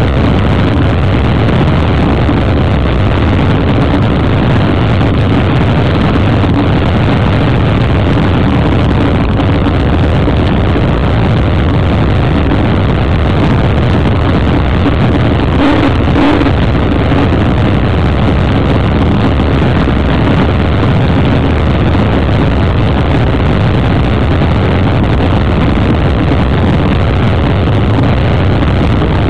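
Offshore racing powerboat running at speed, heard from on board: a loud, steady engine drone with rushing wind and water noise.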